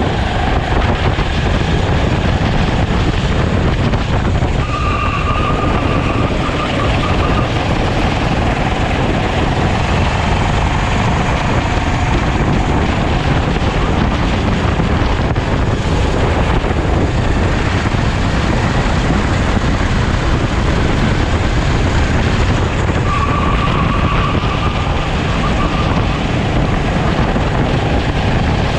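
Onboard sound of a rental racing kart at speed: the kart's engine running hard under heavy wind buffeting on the camera. A higher, clear engine note stands out for a couple of seconds, once about five seconds in and again a few seconds before the end.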